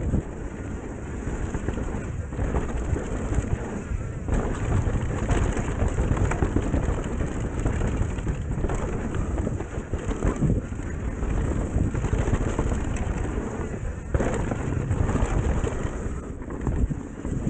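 Mountain bike ridden fast down a dirt forest trail: a loud, steady rumble of tyres and bike over the ground mixed with wind buffeting the camera microphone, dipping briefly a few times.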